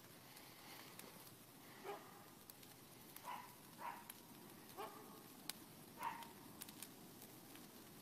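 Faint crackling and popping of a burning brush pile of dry branches as the fire catches. Five short animal calls, the loudest sounds, come at uneven intervals in the first three-quarters.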